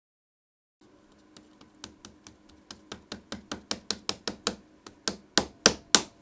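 A quick run of light, sharp taps on a hard surface, about four a second, starting about a second in and growing louder near the end.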